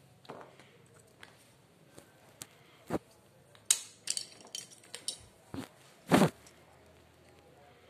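Small plastic pencil sharpeners and erasers clicking and knocking against each other and the cardboard box as a hand sorts through them: scattered taps, with a louder knock about six seconds in.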